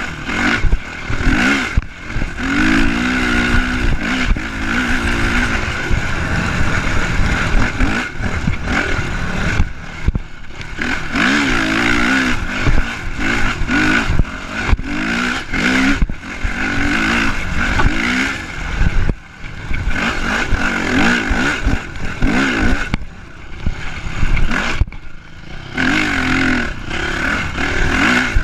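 Honda CRF450 dirt bike's single-cylinder four-stroke engine revving up and down again and again as the throttle is worked while riding. Underneath is a steady rush of wind and riding noise.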